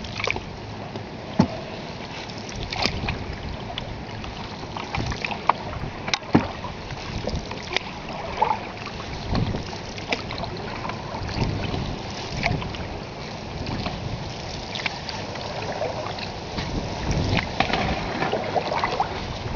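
Open canoe moving down a fast-flowing river: steady water rushing and lapping along the hull, with paddle splashes and scattered sharp knocks throughout.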